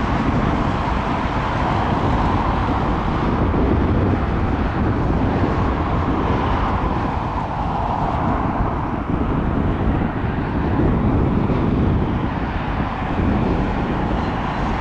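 Jet engine noise from a Boeing 737-700 BBJ with CFM56-7 turbofans on approach to land. It is a steady rushing noise with a band of whine that slowly swells and drifts in pitch.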